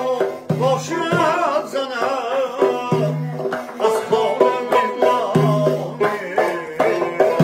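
Live Tajik folk music: a doira frame drum struck in a brisk rhythm, a plucked long-necked lute and a man singing an ornamented melody.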